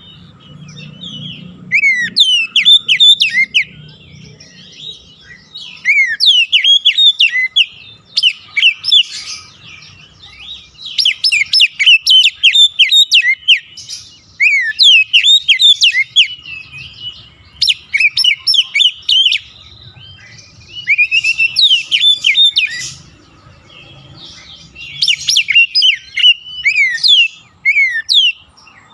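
Oriental magpie-robin (kacer) singing in repeated loud bursts of rapid, sharp whistled and chirping notes, with short pauses between phrases.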